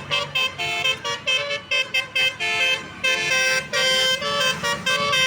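Bus's telolet basuri musical horn playing a quick melody of short notes that step up and down in pitch, several horn tones sounding together.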